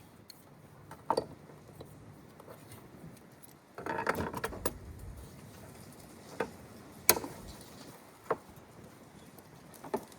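Hand tools and metal parts being handled: scattered clicks and clinks, a short rattling scrape about four seconds in, and the sharpest click about seven seconds in.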